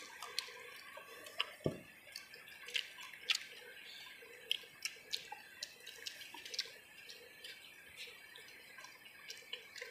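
Faint, irregular clicks and smacks of eating by hand and chewing, a small tick every half second or so, over a faint steady hiss.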